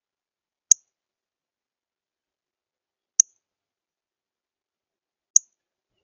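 Northern cardinal giving sharp, high chip notes, three times, a couple of seconds apart.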